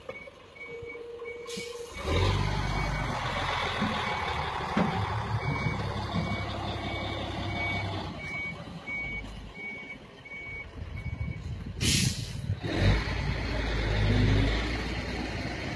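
Crane truck's warning beeper sounding in short, even beeps about three a second while its diesel engine runs, the engine picking up loudly about two seconds in. A short burst of air hiss comes near the end, after the beeping stops.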